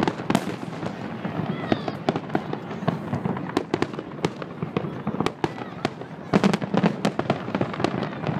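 Aerial fireworks shells bursting in a rapid, irregular run of sharp bangs and crackles, thickest in two runs, about a third of the way in and again near the end.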